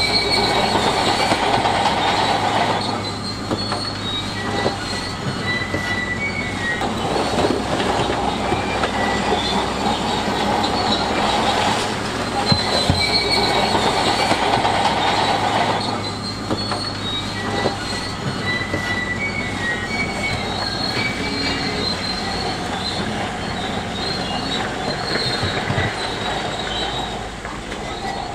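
Shantui crawler bulldozer at work: its diesel engine runs with a steady hum while the steel tracks squeal and clank in intermittent high squeaks.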